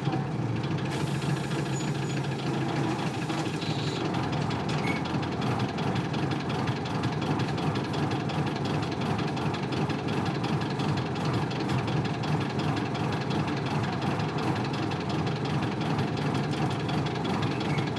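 Isuzu Cubic bus's 8PE1 V8 diesel engine running at a steady speed, heard from inside the bus, with a rapid, even knocking pulse. The uploader notes an abnormal noise (異音) from this bus.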